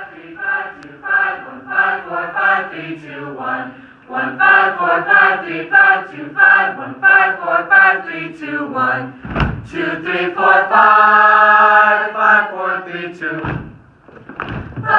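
A high school choir singing a quick vocal warm-up, with short syllables on changing pitches and a chord held for about two seconds past the ten-second mark. There are a couple of low bumps, one about nine seconds in and one near the end.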